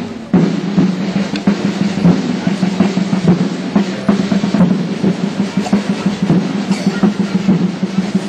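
Procession drums playing a steady roll with many struck beats.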